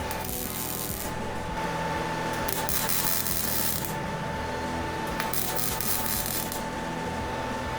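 Metal fabrication in a workshop: a steady whine runs under repeated bursts of harsh hissing noise, each about a second or more long, with short breaks between them.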